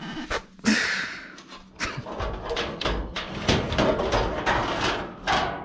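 Galvanized sheet-metal duct parts being handled: a run of clicks, knocks and metal-on-metal scraping, with a longer rasping scrape about a second in as the stiff adjustable elbow's sections are twisted.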